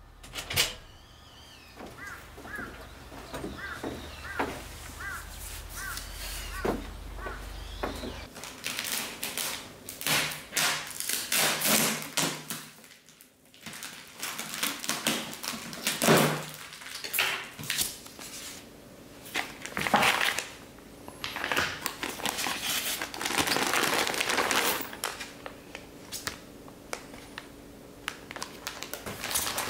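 A run of short chirps over a low steady hum, then, from about eight seconds in, a styrofoam seafood box being unpacked: a knife cutting through packing tape, the styrofoam lid scraping and squeaking, and plastic-wrapped packs rustling and crinkling as they are lifted out.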